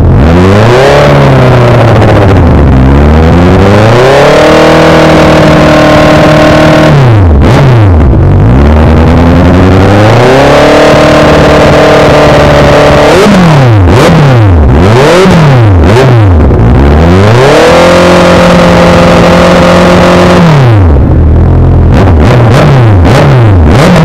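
Honda CB650's inline-four engine revved through an aftermarket Villain R11 exhaust. It makes quick blips and three longer holds at high revs, dropping back between them, then settles to a steady idle over the last few seconds. Loud.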